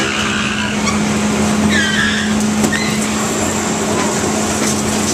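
Rock-N-Roll carnival ride running: a steady mechanical hum under a wash of machine noise, with a couple of short high squeals, one at the start and one about two seconds in.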